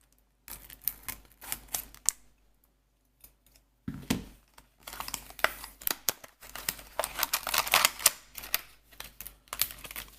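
A card-game starter deck box being opened and its paper and plastic packing handled: quick clicks, rustles and crinkles, a short burst near the start, a pause, then almost constant crackling through the second half.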